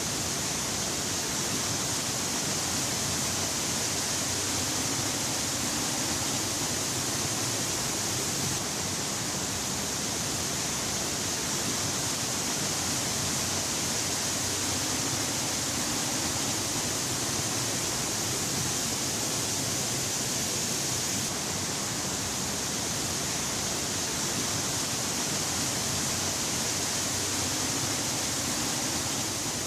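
Steady, even rush of a tall horsetail waterfall, Aberdeen Falls, pouring down a rock face into its pool.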